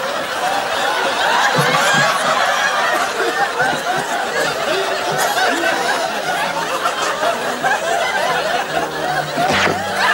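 Studio audience laughing steadily: many voices chuckling and tittering together. A quick falling-then-rising swoop comes near the end.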